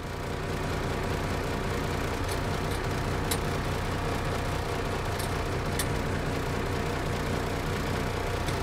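Valtra 8150's 6.6-litre six-cylinder diesel engine running steadily, heard from inside the tractor cab, with a few faint clicks in the middle.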